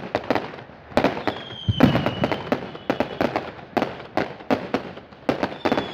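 Fireworks going off in quick succession: a rapid string of sharp bangs and crackles, with a high whistle that falls slightly in pitch starting about a second in and lasting about two seconds.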